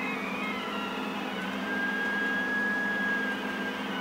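Stepper motors of a desktop CNC pen plotter whining as the pen traces a curve: several tones glide up and down and cross as the axes change speed, one holding steady for a second or so in the middle, over a steady low hum.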